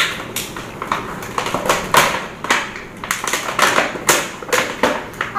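Clear plastic packaging bag crinkling and crackling in an irregular run of sharp rustles as it is handled and opened to get a toy out.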